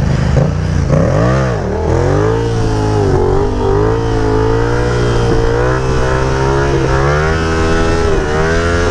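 Yamaha FZ-07 (MT-07) parallel-twin engine revving up and back down about a second in, then held at a fairly steady rev with small throttle wobbles while the bike rides a wheelie.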